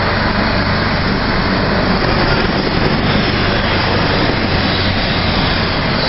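Helicopters running, their turbine engines and rotors making a loud, steady noise.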